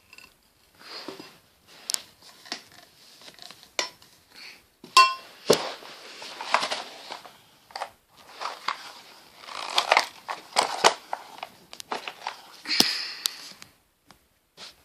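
Handling noise from vacuum cleaner parts: irregular clicks, knocks, clinks and rustling scrapes, with busier, louder stretches about five seconds in and again around ten seconds in. The motor is not running.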